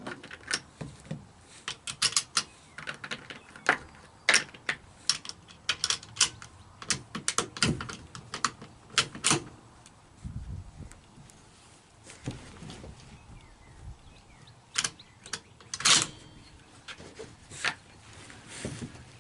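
Scattered sharp clicks and metallic rattles from handling the Mauser 66 bolt-action rifle between shots, irregular and coming in clusters, with a quieter stretch near the middle.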